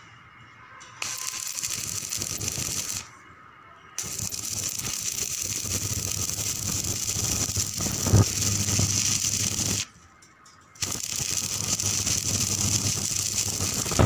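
Electric arc welding on steel: a steady crackling hiss in three runs, about two seconds, then about six, then about three, with short breaks between as the arc is stopped and struck again.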